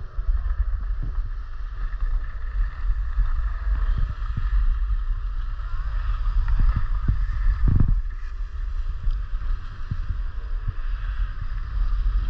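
Wind buffeting an action camera's microphone as a skier glides down a groomed run, a steady low rumble with a few short thumps, over the hiss of skis sliding on packed snow.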